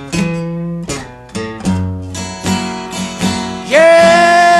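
Acoustic blues song: plucked acoustic guitar over a steady bass, with a loud, long held note starting near the end.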